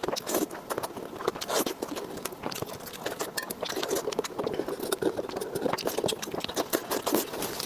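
Close-miked eating: a steady run of crunching, crackling bites and chewing clicks.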